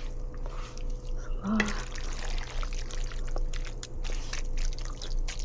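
Water trickling and dripping in a kitchen, with scattered small clicks and a steady electrical hum underneath.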